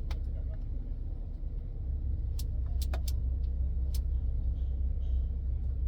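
Car engine idling as a steady low rumble that gets a little louder about two seconds in, with a few scattered light clicks.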